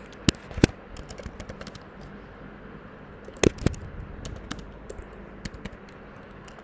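Typing on a computer keyboard: scattered, irregular key clicks, with a few louder clacks just after the start and about three and a half seconds in.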